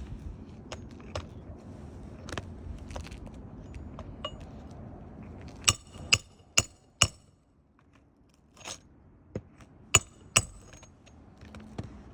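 Sharp metallic clinks from metal hand tools working on asphalt roof shingles: four in quick succession about halfway through and two more near the end, with light scraping and small taps between.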